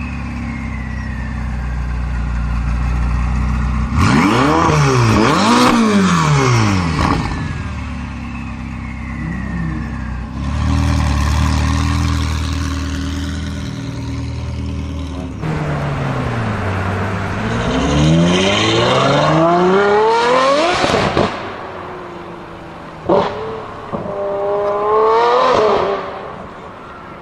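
Supercar engines revving hard in several short clips in a row, the pitch climbing and falling through the gears. There are a few sharp cracks after about 21 seconds, and a last rev rises and cuts off near the end.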